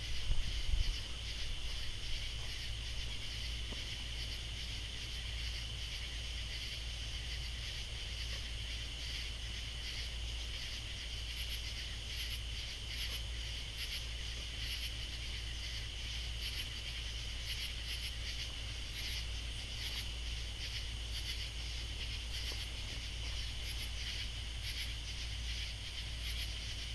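Katydids calling in a night chorus: a steady high insect drone with groups of short, rhythmic chirping pulses above it, over a low steady hum.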